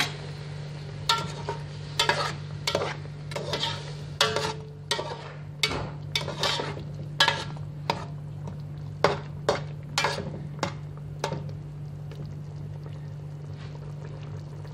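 A spoon stirring in a steel pot of fish simmering in tomato sauce: irregular sharp clinks and scrapes against the metal, about two a second, which stop about eleven seconds in, over a steady low hum.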